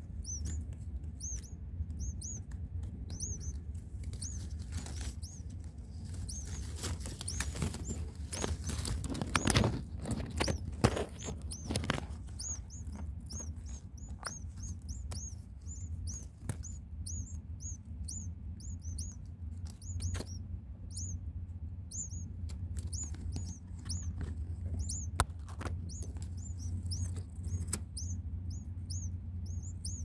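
Nestling songbirds begging in the nest: rapid, high-pitched cheeping, several short calls a second, kept up throughout. A burst of rustling and knocks comes about a third of the way in.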